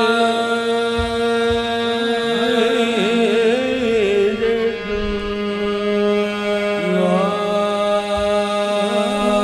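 Qawwali music: harmonium notes held steady while a singer's wordless voice glides and wavers over them. A few low thumps come in between.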